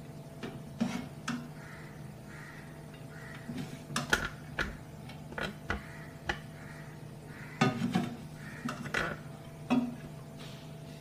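A spatula scraping and knocking against a nonstick frying pan and a serving plate as fried rice is scooped out and served: irregular clinks and scrapes, about a dozen, some louder around four and eight seconds in.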